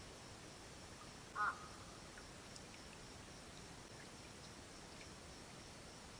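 A single short animal call about a second and a half in, over a faint steady high-pitched drone of night ambience.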